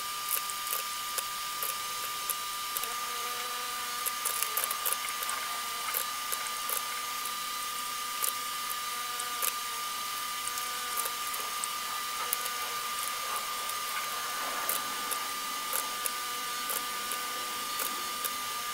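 Computer mouse clicking at irregular intervals over a steady hiss with a constant high-pitched whine.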